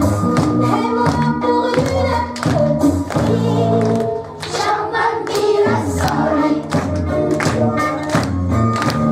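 A song with a woman's lead voice over a steady beat.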